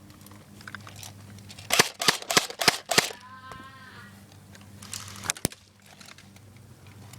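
Airsoft guns firing: a quick string of about five sharp pops, roughly three a second, then two or three more a couple of seconds later.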